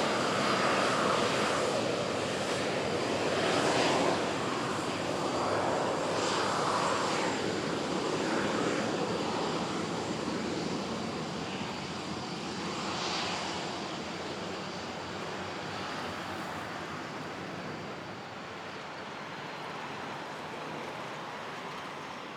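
Jet noise from a Boeing 737-800's CFM56 engines as the airliner passes low on its landing approach. It is loudest in the first few seconds, then rumbles and slowly fades as the aircraft moves away down the runway.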